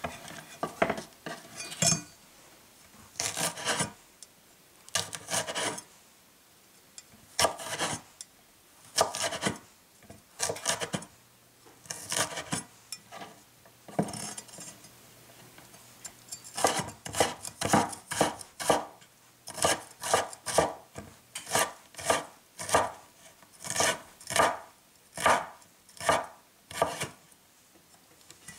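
Chef's knife cutting green chiles on a wooden cutting board: scattered slicing strokes at first, then a steady mincing run of about two cuts a second through the second half.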